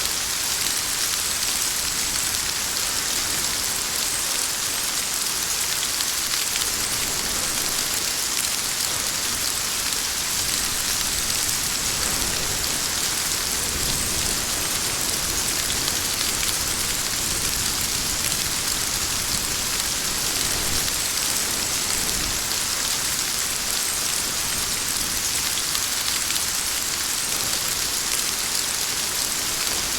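Rain falling steadily: a dense, even hiss of many drops with no let-up and no thunder.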